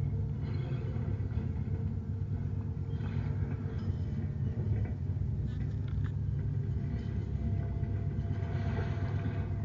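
A steady low background rumble, with a few faint clicks and clacks of plastic CD cases being handled.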